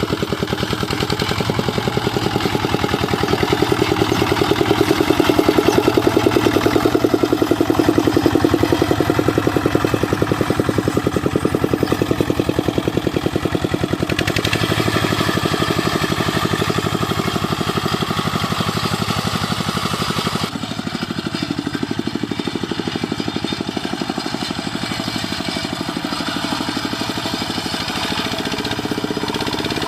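Single-cylinder Dongfeng diesel engine of a two-wheel hand tractor running steadily, with a fast, even chug of firing pulses. About two-thirds of the way through the sound changes abruptly and becomes a little quieter.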